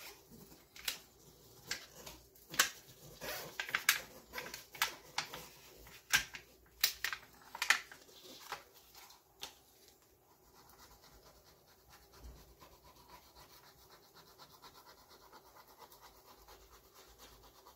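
Adhesive backing film being peeled from a magnetic sheet, crackling in sharp snaps and rustles for about ten seconds. After that, fainter steady rubbing and scraping as a plastic putty knife presses the magnet sheet down onto the aluminium bed.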